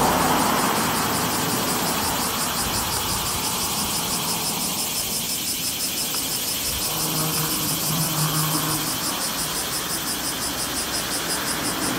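A cicada chorus with a steady, rapidly pulsing buzz. A passing vehicle fades away in the first second.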